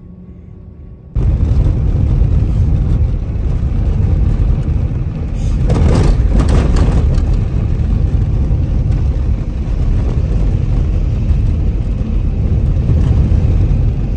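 A car driving, with a steady low rumble of road and engine noise that comes in suddenly about a second in.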